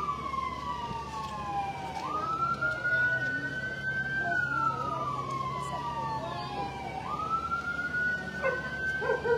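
Siren wailing in slow cycles: each time it rises quickly, then slides slowly down in pitch over about three seconds. It rises again twice, about five seconds apart.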